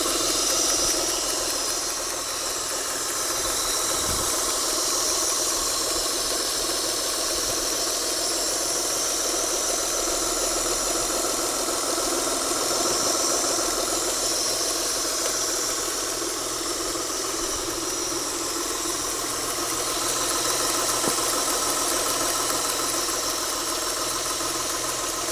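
Mitsubishi Galant engine idling steadily, with a faint hiss or airflow noise from near the intake manifold underneath the engine sound.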